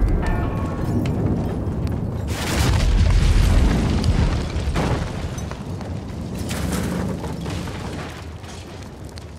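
Deep rumble of a wooden barn explosion. It swells again about two and a half seconds in, gives a sharp crack near five seconds, then slowly dies away.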